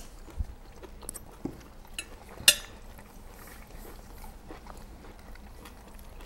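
Cutlery clicking on plates and quiet chewing while eating, a few scattered small clicks with one sharp clink about two and a half seconds in.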